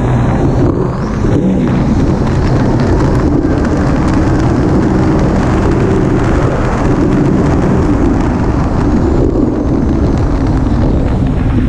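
Small motorboat's engine running steadily at speed, mixed with water rushing and splashing past the hull and wind buffeting the microphone.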